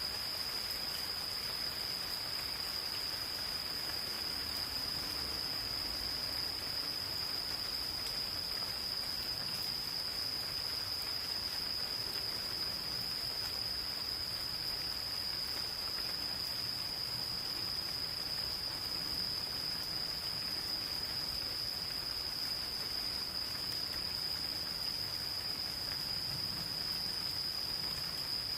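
Insects, cricket-like, calling in one unbroken high-pitched trill, over the soft steady hiss of light rain in a forest.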